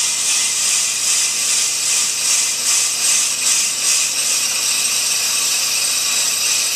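Ammco brake lathe taking a fast cut across a spinning hubless brake rotor: the cutting bits scraping the rotor face give a steady, high hiss over the lathe's running, pulsing slightly about twice a second in the middle.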